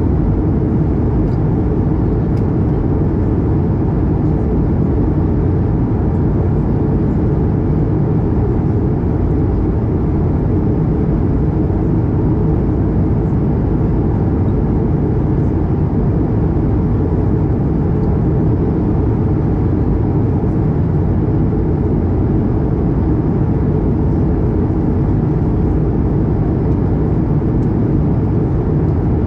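Steady cabin noise of an Airbus A220-300 in flight: a constant low rush of airflow and its Pratt & Whitney PW1500G geared turbofan engines, heard from inside the cabin, holding an even level throughout.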